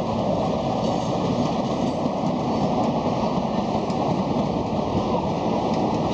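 A train running past on the track: a steady rumble of wheels and running gear, with a few faint clicks.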